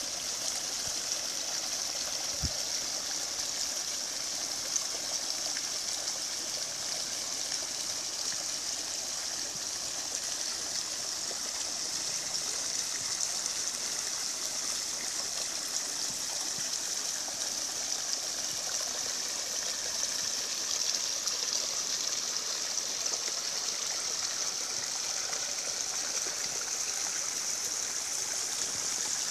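Rushing water of a mountain stream, running steadily with a hiss.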